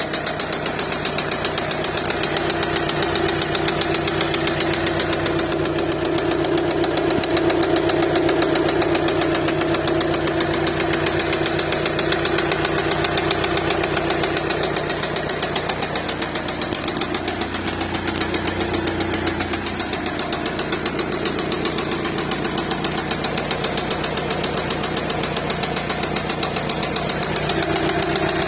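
Four-cylinder 2.0 TDI diesel engine (CKRA) of a VW Passat B7 running with a loud noise, a rapid even clatter over a steady hum. A little past halfway the pitch of the hum shifts for a few seconds, then settles back.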